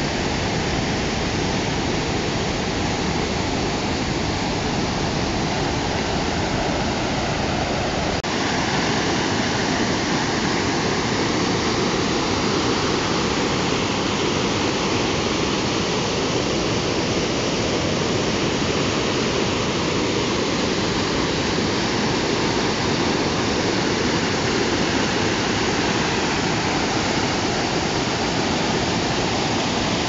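Fast creek water rushing between large boulders: a steady, unbroken noise of rapids, which shifts slightly about eight seconds in.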